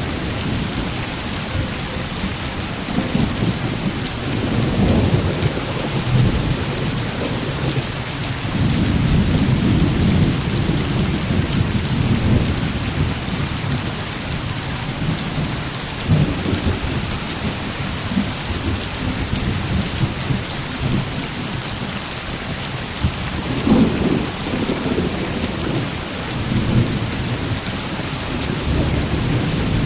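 Heavy rain falling steadily with repeated low rolls of thunder, the strongest around the middle and about two thirds of the way through.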